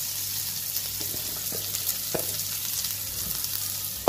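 Diced onions sizzling in hot oil in a non-stick frying pan: a steady hiss with light crackles. Right at the end, a glass lid knocks down onto the pan.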